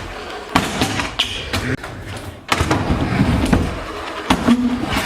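Stunt scooter rolling on concrete, with several hard thuds and clatters as the deck and bar hit the ground during a triple-whip attempt that fails.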